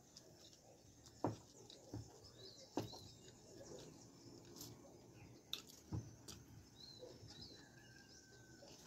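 Quiet eating sounds: about five short sharp clicks of a metal fork against a foil-lined tray of fries, the loudest about a second in. Faint bird chirps run in the background.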